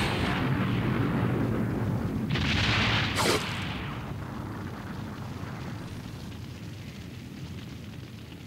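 Sound effects of a large explosion in an animated battle: a deep rumble, a second blast about two and a half seconds in, then the rumble slowly dying away.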